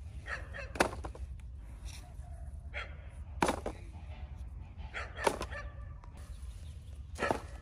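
Four sharp knocks or chopping strikes, spaced about two seconds apart, over a steady low rumble.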